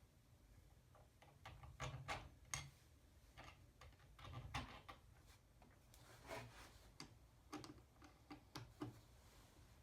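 Near silence broken by scattered faint clicks and light knocks, a dozen or so, irregularly spaced.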